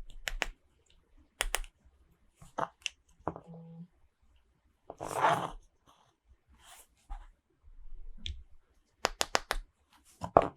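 Small toy pieces and packaging being handled: scattered light clicks and taps, a short rustle about five seconds in, and a quick run of clicks near the end.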